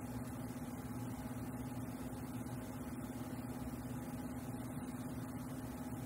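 Steady low hum with a constant low tone and no distinct events: room background hum.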